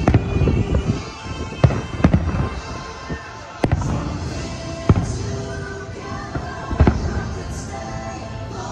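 Fireworks bursting in a string of sharp bangs with deep booms, a second or two apart, over music playing along with the show.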